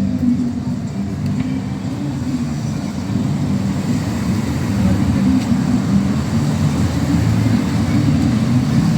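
City street ambience: a steady low rumble of road traffic passing, growing a little louder partway through, with the voices of passers-by mixed in.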